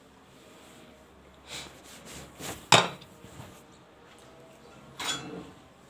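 A steel cooking pot being handled, clattering: a few light knocks, then one sharp clank nearly three seconds in, and another short clatter about five seconds in.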